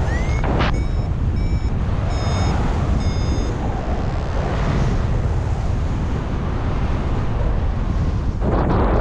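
Airflow buffeting the microphone in paragliding flight, with a flight variometer giving a short run of high electronic beeps in the first few seconds. A stronger gust comes near the end.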